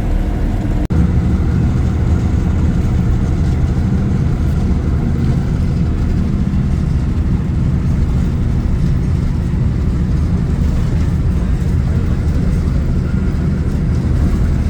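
Steady low engine and road rumble heard from inside a moving vehicle, with a momentary break just under a second in.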